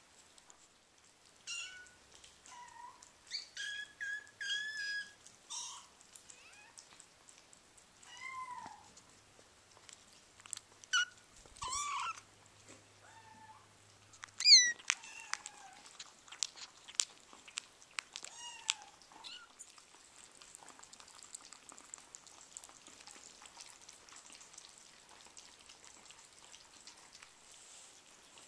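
Young kittens giving repeated high-pitched meows, a dozen or so short mews over the first twenty seconds, one sharper and louder than the rest about halfway. After that comes a faint patter of small clicks as kittens eat dry food from bowls.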